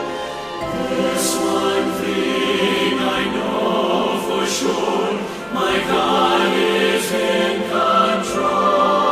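Choral music: a choir singing in sustained, held notes.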